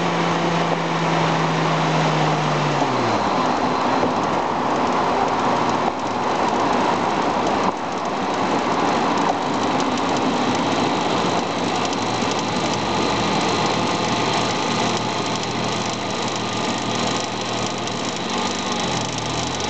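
Volkswagen Golf VR6 engine running under way, with road noise. Its steady drone falls in pitch about three seconds in as the revs drop, and dips again near the end.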